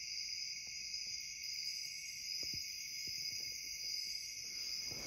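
Chorus of night insects such as crickets, a steady high-pitched calling in two pitches, with a few faint ticks.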